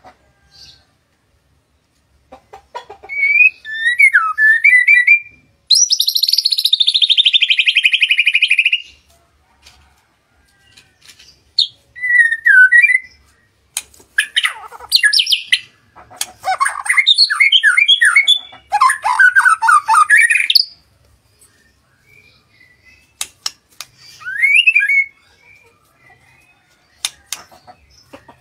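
White-rumped shama (murai batu) singing in separate phrases with pauses between them. The phrases are whistled notes, a long fast trill falling in pitch about six seconds in, and quick runs of varied notes in the middle. A few sharp ticks come near the end.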